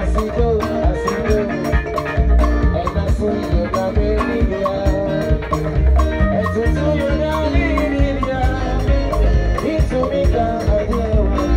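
A live band playing an upbeat gospel groove during a sound check. Heavy bass, melodic pitched lines and a steady, even percussion tick run throughout.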